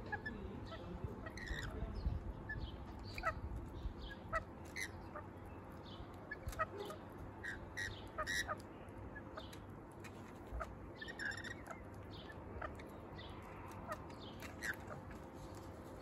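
Rainbow lorikeets calling in short, irregular screeches and chirps, scattered through the whole stretch.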